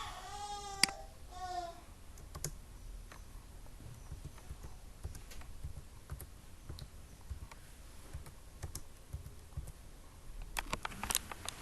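Computer keyboard typing and clicking: scattered single clicks, then a quicker flurry near the end. A short high-pitched voice-like sound comes in the first two seconds.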